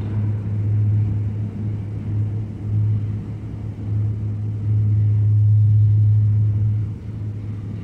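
Steady low hum and rumble in a subway tunnel, swelling louder about two-thirds of the way through.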